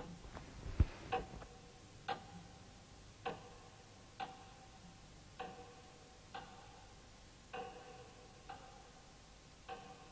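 A clock ticking about once a second, each tick with a short ringing note, with a single low thud a little under a second in.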